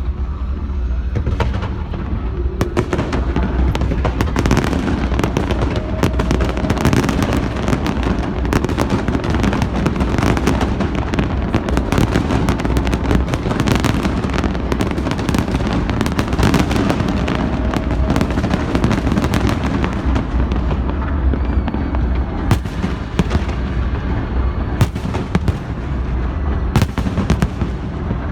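Fireworks display: aerial shells bursting in rapid, overlapping bangs and crackles, thickening a couple of seconds in and thinning to separate bangs near the end, over a steady low rumble.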